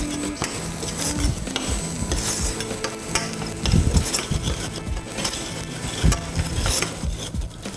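A metal spoon stirring and scraping through mushrooms and onions frying in butter in a small stainless-steel saucepan, with irregular strokes and a few knocks against the pan over a steady sizzle.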